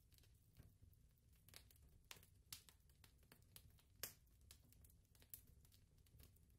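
Near silence: a faint low hum with scattered faint clicks, about two a second at uneven spacing.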